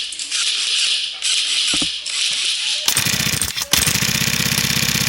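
Hissing noise in bursts, then a fast, even mechanical rattle starting about three seconds in, with a short break before it runs on.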